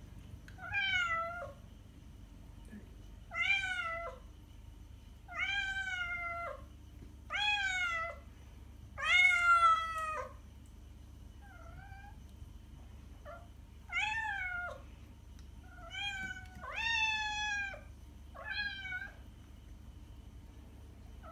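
A kitten meowing repeatedly: about nine loud, high meows roughly every two seconds, each dropping in pitch at its end, with a couple of faint, short squeaks in between.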